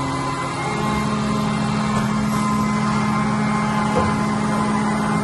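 Haas VF-2 CNC vertical machining center running a cut: a steady mechanical hum made of several held tones, which shift about a second in, with a short knock about four seconds in.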